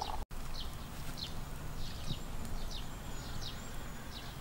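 Birds chirping: short falling chirps repeating every half second or so, with a few higher whistled notes in the middle, over a steady low background rumble.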